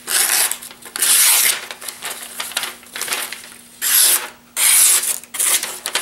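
Ka-Bar Mule folding knife's AUS-8 stainless blade slicing through lined notebook paper: about four hissing cuts, each lasting about half a second, with paper rustling between them. The edge slices the paper cleanly and is still very sharp after use.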